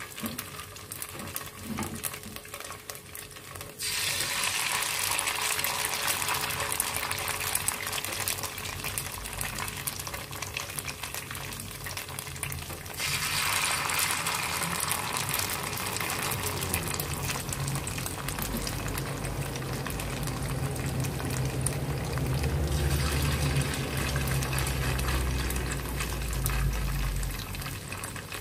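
Hot cooking oil sizzling as spoonfuls of tofu and dried-shrimp batter are dropped in to fry. The sizzle jumps up suddenly about four seconds in and again about thirteen seconds in, as each new fritter hits the oil.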